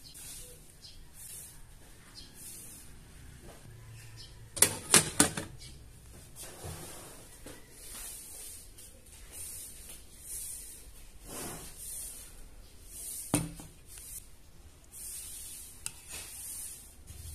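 Metal spoon clicking against a plastic bowl of thick porridge: three quick clicks about five seconds in and a single click later. Soft hissing noises come and go in between.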